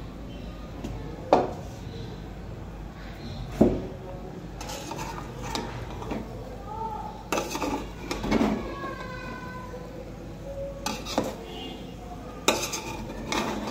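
A metal spoon scraping through steamed biryani rice and knocking against the sides of a large aluminium pot, with about eight sharp clinks spaced irregularly.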